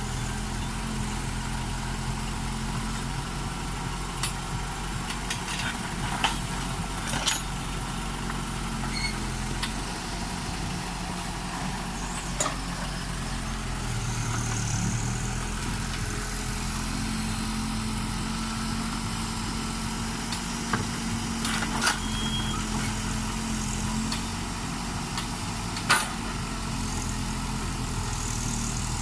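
Case backhoe loader's diesel engine running steadily, its pitch shifting slightly as it works, with a few short sharp knocks.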